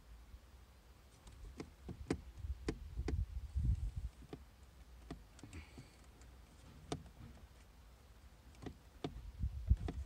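Irregular light clicks and knocks, with low rumbling handling noise, as fingers press and wiggle a car head unit's flat ribbon cable against its metal case.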